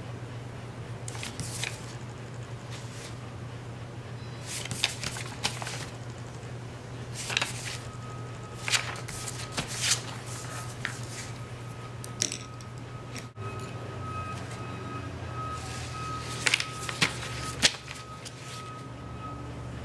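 Sheets of paper rustling and crinkling in short scattered bursts as a sheet laid on wet paint is handled and peeled back off, over a steady low hum.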